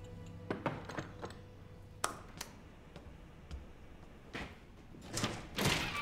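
Scattered light knocks and taps of porcelain tea things being handled and set down on wooden tables, coming closer together near the end.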